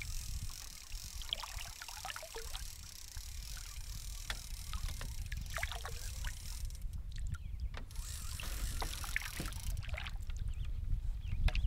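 Small waves lapping and slapping against a canoe hull in irregular little splashes and drips, over a steady low rumble of wind on the microphone.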